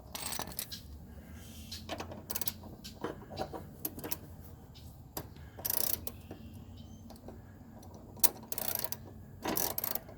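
Irregular metallic clicks and short rasping bursts of hand tools working a two-jaw puller, trying to draw a rusted-on blade adapter off a lawn mower's crankshaft.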